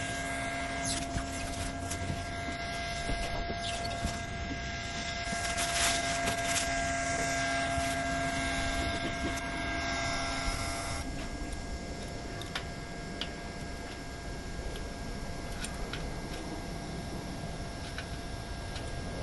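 A steady mechanical hum with a few faint held tones over a noisy background, changing about eleven seconds in, with scattered light clicks.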